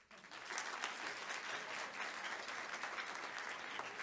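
Small audience applauding, starting suddenly and then holding steady as a dense patter of claps.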